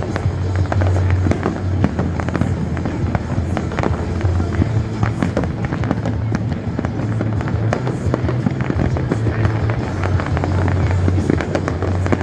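Aerial fireworks going off in a dense, continuous run of pops, bangs and crackles, with music playing underneath.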